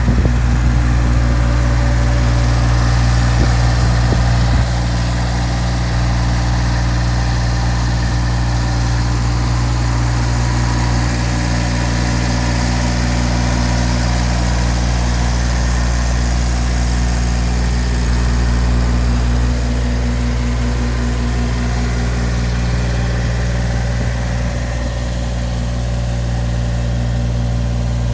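Diesel engine of a JCB 8008 micro excavator idling steadily, with a slight drop in level about five seconds in.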